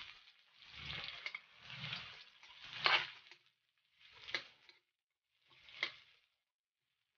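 Metal spatula scraping and stirring sliced onion and ginger frying in oil in a wok, in separate strokes about once a second with sizzling, the later strokes ending in a sharp clink of metal on the pan. The stirring stops about six seconds in.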